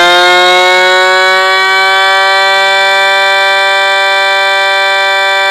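3D-printed 8/12-port air raid siren with a DC-motor-driven rotor, sounding loud and steady at full speed. Its pitch creeps up slightly early on and then holds.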